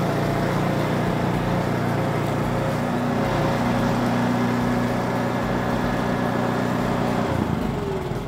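Briggs & Stratton Vanguard engine of a small double-drum ride-on vibratory roller running steadily as the machine drives, with the drum vibration switched off. Near the end the engine note drops and falls in pitch.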